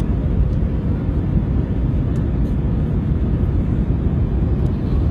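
Jet airliner cabin noise heard from a window seat beside the wing: the turbofan engines and rushing air make a steady, low, even noise.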